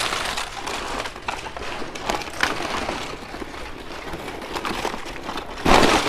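Paper bags rustling and crinkling as a tied bundle of them is handled, with a louder rustle near the end.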